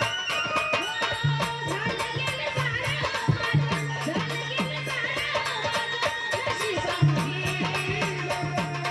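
Folk music instrumental passage: a fast, even rattle with drum strokes that drop in pitch, over a few sustained tones.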